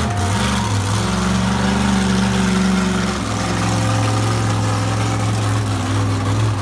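Avenger monster truck's supercharged V8 engine running steadily at low throttle, its note shifting slightly about three seconds in.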